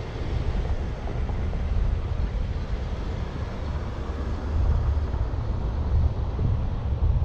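Car driving along a street, heard as a steady low road-and-engine rumble with a fainter hiss above it.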